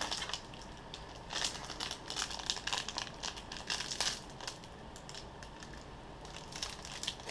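Crinkling of a Dragon Ball Super Card Game pack wrapper being handled and opened, in short, sharp crackles, most of them in the first four seconds or so and fewer and quieter after that.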